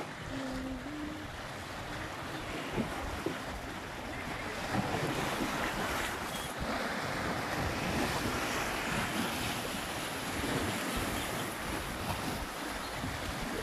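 Sea waves washing over a rocky shore, with wind buffeting the microphone.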